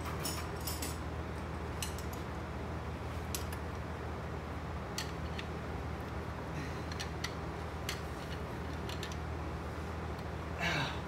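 Scattered metallic clicks and clinks of a wrench working the rocker-arm shaft bolts on a 1986 Toyota pickup's cylinder head, over a steady low hum. Near the end comes a louder scraping rattle of metal.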